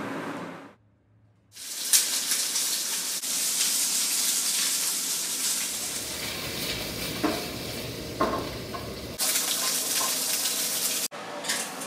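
Pieces of chicken sizzling as they fry in a pan on a gas range: a dense, steady hiss that begins after a second-long gap, with a few light knocks of utensils against the pan.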